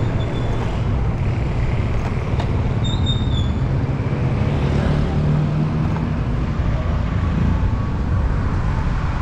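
Steady low rumble of wind on the camera's microphone and tyre noise while riding a fixed-gear bicycle, with motor traffic around it. A brief high tone sounds about three seconds in.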